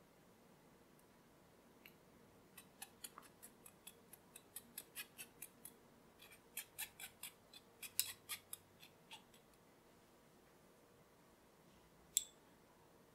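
Flour being sifted into a glass bowl: quick, light clicks from the sifter, about four a second, start about two seconds in and stop near nine seconds. One sharp click follows near the end.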